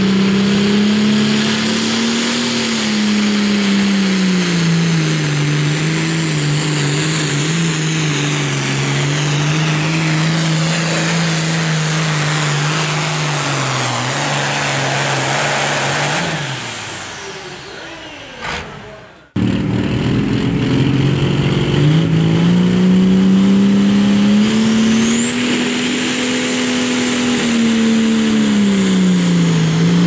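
John Deere 8410 pulling tractor's diesel engine running at full load, its note wavering. About sixteen seconds in the pitch falls and the engine winds down as the pull ends. After an abrupt cut, a second pulling tractor, an International Harvester 1066 diesel, runs loud, its pitch climbing and then dropping back near the end.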